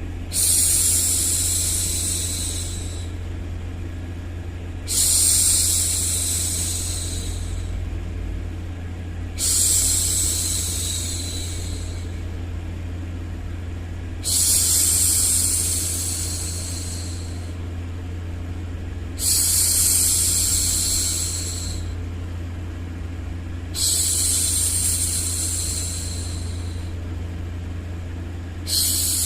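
A woman's long hushing 'shhh', repeated about every five seconds, each one starting sharply and trailing off, over a steady low white-noise hum: a hushing sound to soothe a baby to sleep.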